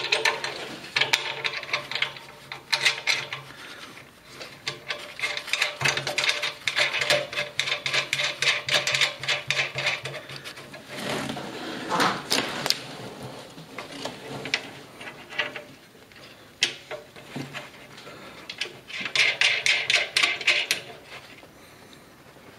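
Bursts of rapid metallic clicking and rasping as fasteners are worked on the steel frame of a Husky 5000-watt portable generator during assembly, in several runs of quick clicks with short pauses between.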